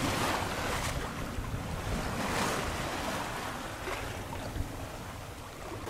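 Water rushing and splashing along a sailboat's hull under sail, with wind buffeting the microphone as a low rumble. The rush swells and eases gently, loudest about a second in and again near the middle.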